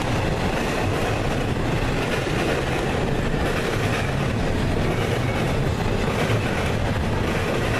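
CSX double-stack intermodal freight train's container well cars rolling past: steady, continuous noise of steel wheels on the rails.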